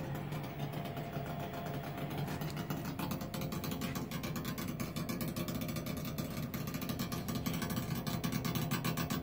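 Lennox furnace running with a fast, evenly spaced clicking over a steady low motor hum.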